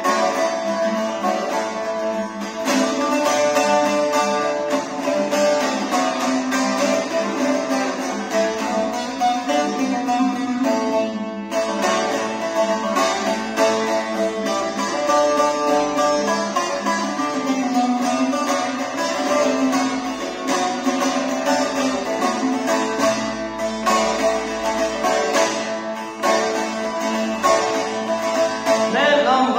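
Bağlama (Turkish long-necked saz) played solo with fast, continuous strumming, an instrumental interlude between the sung verses of a Turkish folk song.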